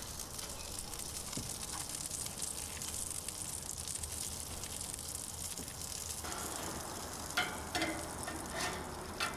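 Hamburger patties sizzling on a grill grate, a steady fizzing hiss. A few light clicks near the end.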